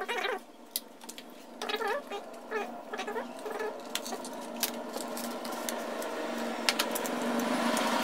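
Light clicks and knocks of a 2.5-inch laptop hard drive in its metal mounting bracket being handled and set down, then of a Kingston SSD and its packaging being handled. A few short, wavering pitched sounds come in the background in the first three seconds, and a steady hum builds from about halfway through.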